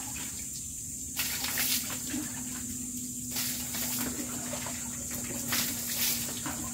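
Water splashing and spattering on a wet concrete floor around a bathed dog's wire cage, with a faint steady low hum underneath.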